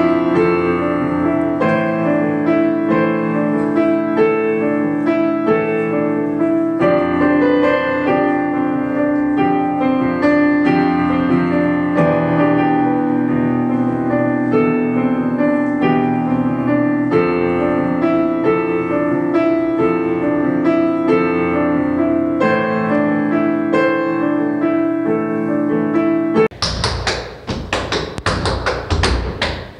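Digital upright piano played, a flowing run of chords and melody notes. Near the end the piano gives way to rapid tap-dance steps, tap shoes striking a wooden stage floor in quick clusters.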